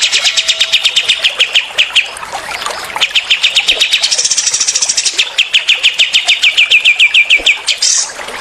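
Songbirds, cililin and kapas tembak, singing rapid-fire 'tembakan' trills: long strings of short, high notes at about ten a second, broken by short pauses, with a higher-pitched stretch around the middle.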